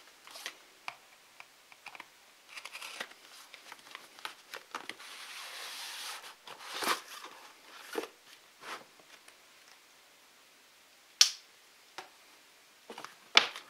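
Cardboard phone box being opened by hand: a small knife blade cuts through the seal, and the inner tray slides out of its sleeve with a scraping rustle, among soft taps and rustles of cardboard. A single sharp click comes about 11 seconds in.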